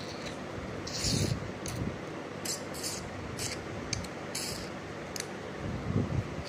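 Handling noise: fingers rubbing and scraping close to the phone's microphone while turning a modelling-clay figure. There are about eight short scratchy scrapes over a steady faint hiss, with a low bump about a second in and another near the end.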